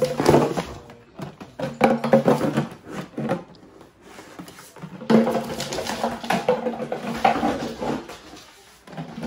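A dog's clear plastic cone collar scraping and knocking against a wooden floor and furniture as the dog roots around, in several uneven stretches with sharp knocks.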